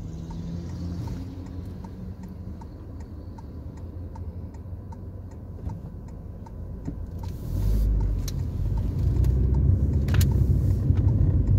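Inside a car: the turn-signal indicator ticks steadily, about two ticks a second, over the low rumble of the idling engine. About seven seconds in, engine and road noise rise as the car pulls away and turns.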